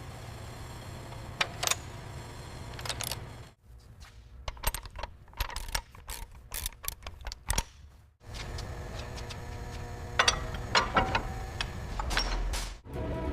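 Sharp metallic clicks and clinks from tools working on metal parts, over a steady low hum. The hum cuts out and returns in edited segments, stopping a few seconds in and coming back past the middle.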